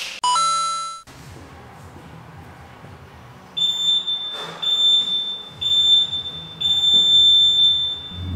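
Wall-mounted gym interval timer beeping a countdown to the start of a workout: five high, steady beeps about a second apart, each nearly a second long, beginning about three and a half seconds in. A short chiming tone sounds at the very start, and faint background music runs underneath.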